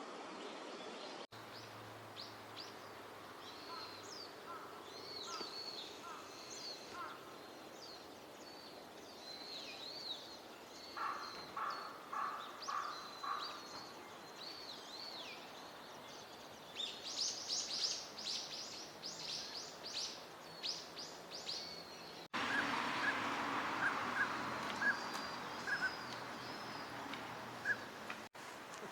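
Northern pintails giving short whistled notes, repeated in quick runs, over high twittering chirps from small birds. The bird calls are heard through a few abrupt edits, one of which brings in a louder wash of outdoor noise.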